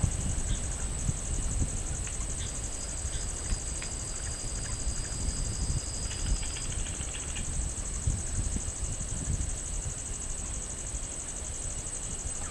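Night insect chorus: a steady, high, rapidly pulsing trill runs throughout, joined by a second insect's thin steady tone for a few seconds in the middle and a short burst of chirps about six seconds in. A low rumble sits underneath.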